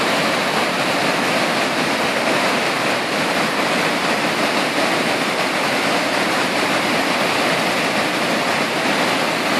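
Muddy floodwater pouring over a low river weir and churning below it: a steady, even rush of water. The river is swollen after heavy rain.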